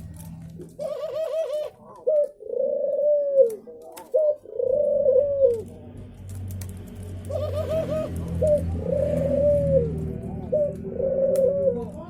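Male dove, known locally as brenggolo, cooing to call a female: two call phrases, the second about halfway through, each opening with a quick run of short notes and then several longer, arched coos.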